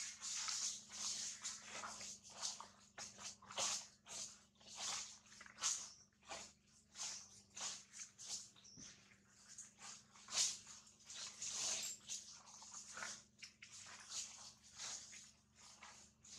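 Dry leaf litter rustling and crackling in short, irregular bursts as macaques shift, groom and move about on it.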